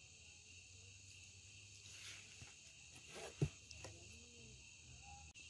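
Crickets trilling steadily in the night air, over a faint low hum. A single short knock sounds about three and a half seconds in.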